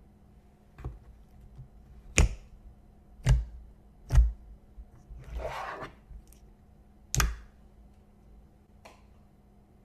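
Slime being handled, giving sharp pops and clicks about five times, irregularly spaced, with a longer noisy squish about five seconds in.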